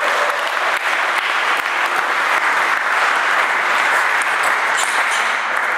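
Spectators applauding steadily in a sports hall, with a few sharp clicks of a table tennis ball in play.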